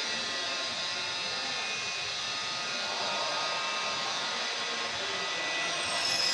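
Steady electric whirring with a faint motor whine, typical of a mobile scissor lift's electric hydraulic power unit running. A short, high, falling squeal comes near the end.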